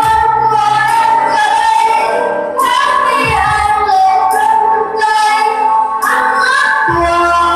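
Karaoke: a young voice singing a melody into a corded handheld microphone over a backing track, with notes held and swelling.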